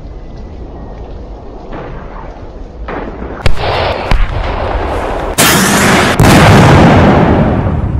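Battle sound effects: a low rumble, then from about three and a half seconds in, sudden loud gunfire cracks and explosions, with two heavy blasts a little after the five- and six-second marks.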